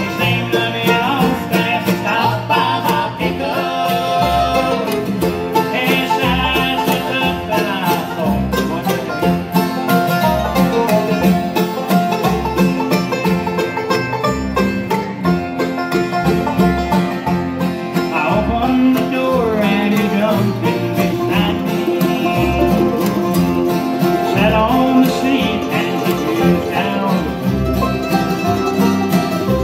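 Live bluegrass band playing: five-string banjo picking, mandolin, acoustic guitar and fiddle over plucked upright bass notes at a steady beat.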